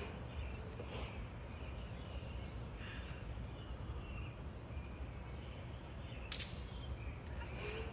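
Quiet outdoor ambience: faint, scattered bird chirps over a low steady rumble, with one sharp click about six seconds in.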